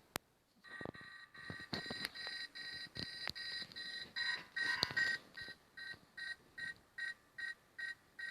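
Nokia 3510i ringtone playing from the phone's speaker: a tune of electronic tones that turns, about halfway through, into short, evenly spaced beeps, nearly three a second. A few sharp clicks come in the first half.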